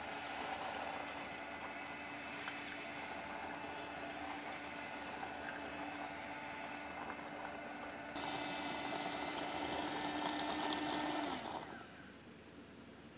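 Kenwood electric hand mixer running steadily, its twin beaters whisking a runny egg batter in an aluminium pot. The motor hum gets louder about eight seconds in, then winds down and stops as the mixer is switched off near the end.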